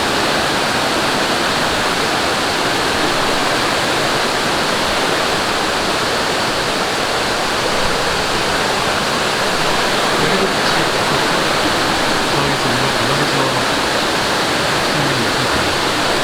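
Mountain stream rushing fast over rocks, a loud, steady wash of water.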